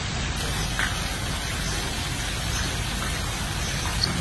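Steady rushing outdoor background noise with a low rumble underneath and no distinct event.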